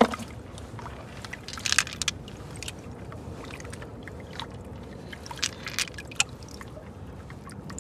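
Sea snail shells clicking and scraping in irregular bursts as the snails are picked out of the rocks and gravel by hand, over a steady hiss.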